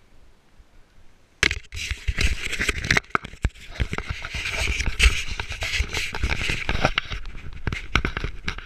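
Iceboard runners scraping and rattling over lake ice, starting abruptly about a second and a half in, with many sharp clicks and knocks.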